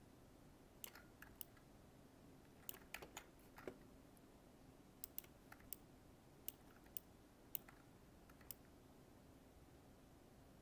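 Faint, scattered clicking of a computer mouse: about sixteen short clicks at irregular spacing, some in quick pairs, over a faint steady hum.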